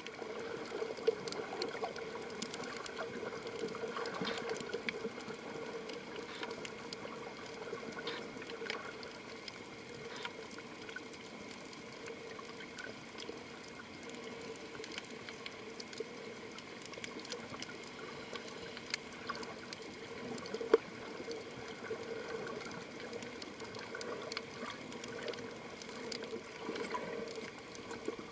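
Underwater ambience heard through a camera's underwater housing: steady, muffled water noise with a low hum, scattered small clicks, and a couple of sharper knocks, the loudest about twenty seconds in.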